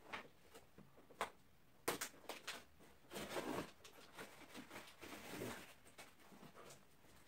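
A cardboard box being opened and its contents handled: scattered light knocks and clicks, the sharpest about two seconds in, with short bursts of rustling packaging around three and a half and five seconds in.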